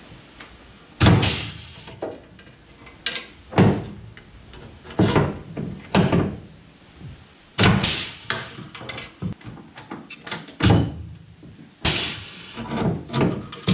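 Air-powered pop rivet gun worked against aluminium boat framing: a series of about eight sharp clunks, each with a short noisy burst, at irregular intervals.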